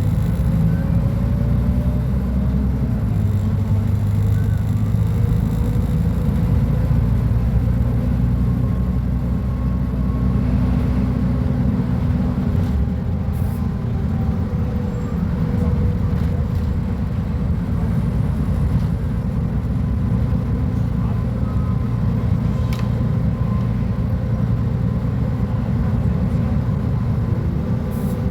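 Diesel engine of a Mercedes-Benz O500UA articulated bus running with a steady low drone, its pitch shifting slightly at times, with a few faint clicks.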